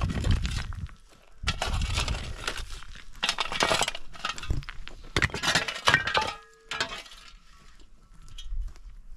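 Irregular clinking and clattering of hard objects being handled, with short scraping noises between the knocks.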